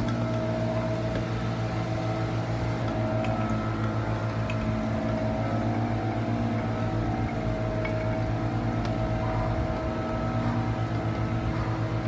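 A steady low mechanical hum, like a motor running, with a few faint clicks.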